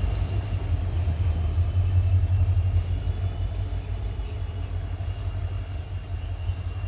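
WDG4D diesel-electric locomotive pulling away with one coach, its engine a steady low rumble that slowly fades as it draws off. A faint thin high whine runs above it.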